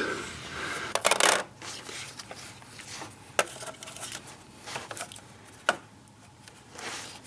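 Handling noises: a short rub or rustle about a second in, then a few scattered sharp clicks and taps.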